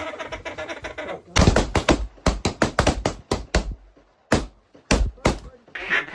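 A string of about a dozen sharp knocks and clacks, irregularly spaced, after a moment of talk.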